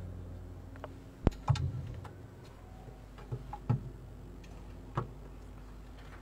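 A handful of scattered, sharp clicks and soft knocks, the loudest two close together about a second and a half in, over a faint steady low hum.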